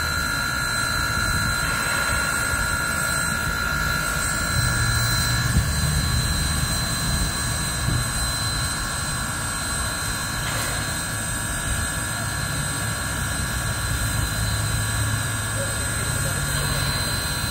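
Baldwin 0-6-0 switcher steam locomotive No. 26 standing at steam: a steady roar and hiss with constant high whining tones and no exhaust chuffs. Two brief knocks come about five and eight seconds in.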